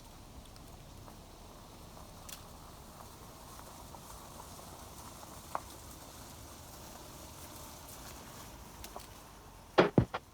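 Faint steady outdoor background hiss with a few scattered sharp clicks, then a quick run of loud knocks near the end.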